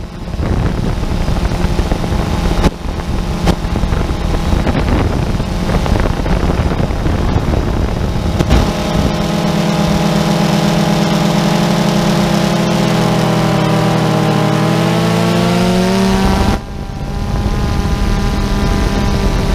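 Multirotor drone's motors and propellers buzzing, heard through its onboard camera. Partway through, several pitches split apart and glide up and down as the motors change speed. Near the end the level dips suddenly, and the buzz carries on steadier.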